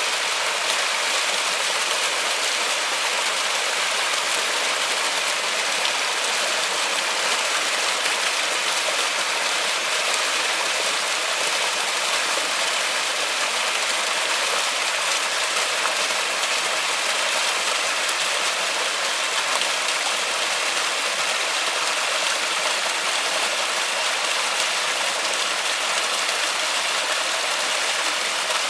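Steady rain falling in a forest, an even hiss with no breaks or lulls.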